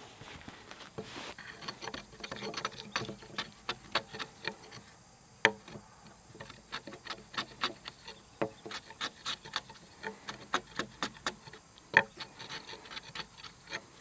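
Framing chisel paring a wooden tenon by hand: a run of short, irregular scraping and shaving cuts, with two louder sharp knocks about five and a half and twelve seconds in.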